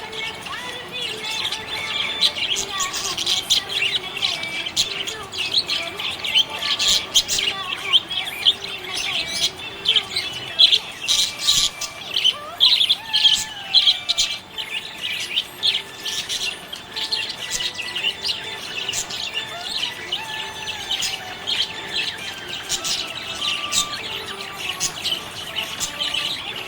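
Budgerigar chirping and warbling, a rapid, continuous run of short high chirps that is loudest in the middle stretch.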